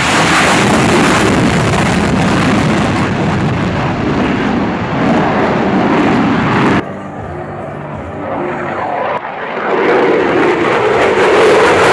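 Jet noise from an F-22 Raptor's twin Pratt & Whitney F119 turbofans as it flies past and climbs, a loud steady roar. The roar drops off suddenly about seven seconds in, then builds again from about nine seconds with a deeper rumble near the end.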